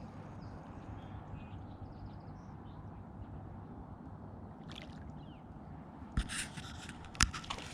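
A small hooked fish splashing at the water's surface as it is reeled in, starting about six seconds in, with a sharp knock near the end. Before that only a steady low rumble.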